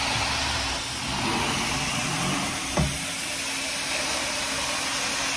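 Carpet extraction wand under suction: the steady rushing roar of the extraction vacuum with a low hum underneath, and one short knock about halfway through.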